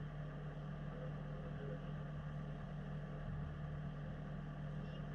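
An engine idling steadily, an even hum with no revving.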